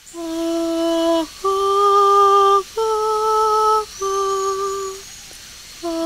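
A woman singing a slow, wordless melody: long held notes, each about a second, that rise and then fall back, with a short pause before a new phrase begins near the end.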